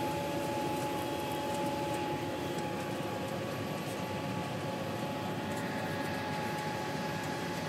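John Deere 7930 tractor's six-cylinder diesel running steadily under ploughing load, pulling a seven-furrow plough and press, with a steady whine over the engine drone.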